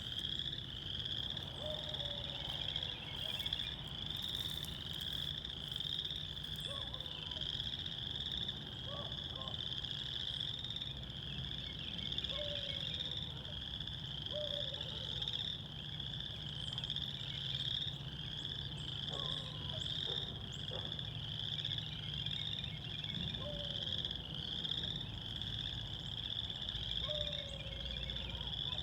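Chorus of calling animals: a steady, high, pulsing trill that never stops, with short falling low calls every few seconds over a faint low rumble.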